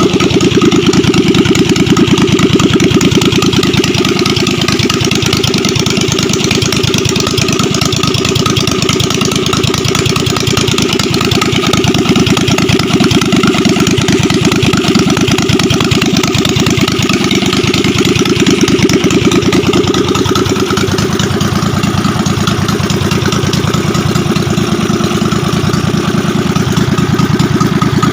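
Kohler 750cc air-cooled V-twin engine running steadily at a constant speed.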